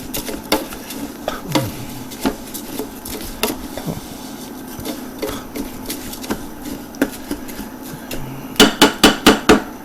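Long grain rice sautéing in hot oil in a pan, sizzling lightly, while a utensil scrapes and clicks against the pan as it is stirred. Near the end, a quick run of about six loud taps on the pan.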